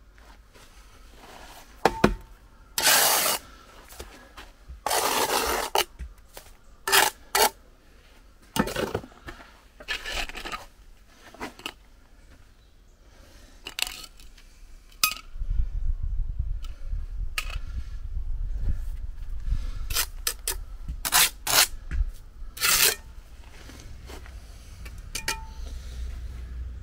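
Steel bricklaying trowel scraping and tapping against concrete blocks and mortar: a few longer scrapes in the first six seconds, then a run of short, sharp scrapes and clicks.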